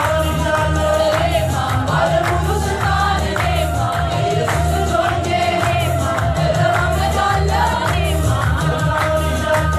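Church choir singing a gospel song together, with held sung notes over a steady, pulsing low beat and regular percussive strikes.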